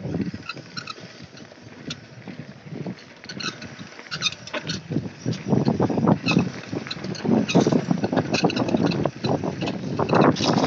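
Mountain bike rolling fast down a dirt forest trail: tyres rumbling over leaf litter, the bike rattling with sharp clicks, and wind buffeting the microphone. The rattling and rumbling get louder about halfway through.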